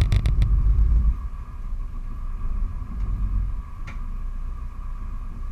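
Motor yacht's inboard engines running at low speed while manoeuvring in to dock: a low rumble that eases after about a second, with a faint steady whine above it and a few light clicks.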